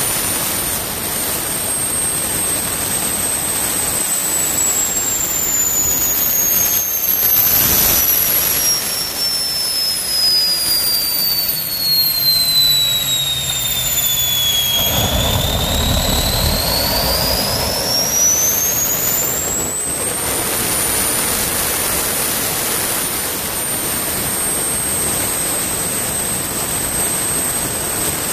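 Small jet turbine from an airplane generator (a 40,000 rpm unit) running with a loud rushing exhaust and a high whine. The whine slowly falls in pitch over about fifteen seconds, then climbs back over about six seconds and holds steady. A brief low rumble comes where the pitch turns around.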